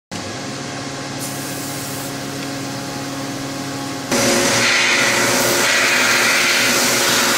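A steady machine hum, then about four seconds in the blast cabinet's sandblasting nozzle opens: a loud, steady hiss of air and abrasive blasting a water pump part.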